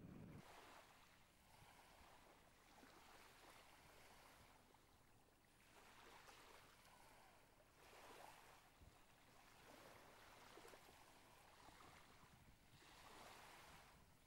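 Faint small waves lapping on a sandy lagoon beach, the wash swelling and fading every two to three seconds.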